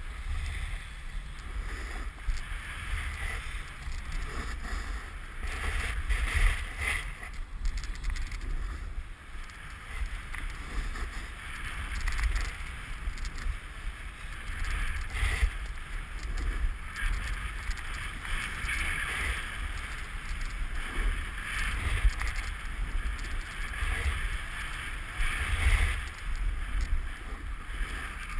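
Snowboard edge scraping and chattering over bumpy, cut-up snow in a continuous hiss that swells and fades with each turn, with wind rumbling on a moving action-camera microphone.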